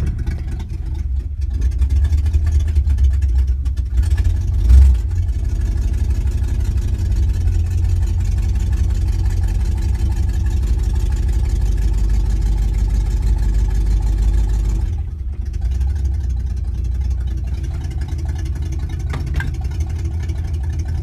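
Chevrolet Impala's engine running, a steady low rumble heard from inside the cabin, with a single thump about five seconds in.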